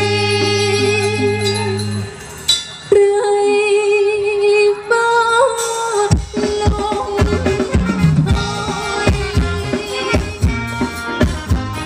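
Live Thai ramwong band music. A sustained low chord cuts off about two seconds in, a single held note carries on alone, and drums come back in with a steady beat about six seconds in.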